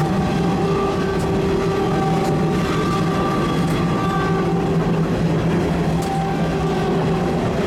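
Train running at speed, heard from the rear cab of an ex-Kanto Railway Kiha 350 diesel railcar: a steady rumble of engine and wheels with a few clicks over rail joints. The locomotive at the head of the train sounds its horn on and off.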